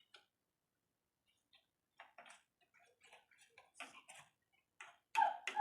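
A spoon clicking and scraping against a bowl while egg, shredded cabbage and spices are stirred together: irregular clicks, loudest near the end.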